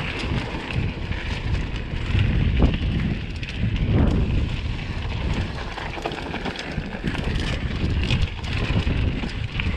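Wind buffeting the microphone over a mountain bike rolling fast downhill on a rough, wet trail, with tyres and bike rattling and knocking over the ground.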